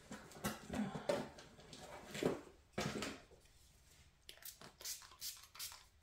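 Small objects being handled and moved about on a tabletop: irregular rustles and knocks for the first three seconds, then a few light clicks and taps near the end.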